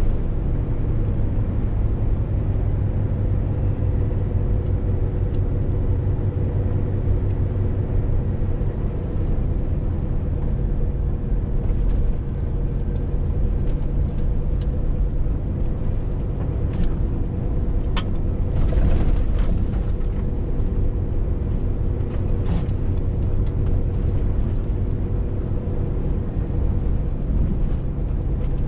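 Scania R450 lorry on the move: its 13-litre straight-six diesel running steadily with a low drone and road rumble, and a few short clicks partway through.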